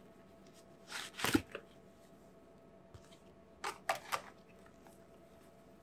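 Brief handling noises from motion-capture gloves and their foam-lined box: a short scuffing rustle about a second in, then a few quick clicks and scuffs a little past the middle.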